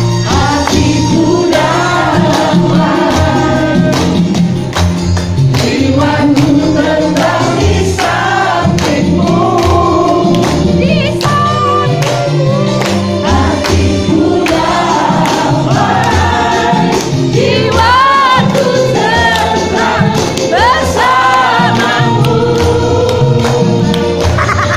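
Upbeat song with a steady beat, sung into microphones while a crowd sings along and claps in time.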